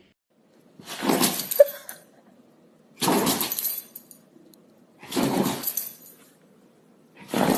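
Dog sneezing four times, about two seconds apart, each a sharp, sudden burst.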